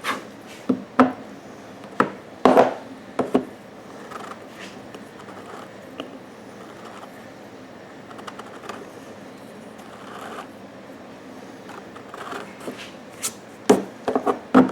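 Repairman's reamer scraping around the edge of a freshly step-drilled hole in plastic to deburr it: a run of short scrapes and clicks over the first few seconds and again near the end, with only faint rubbing between.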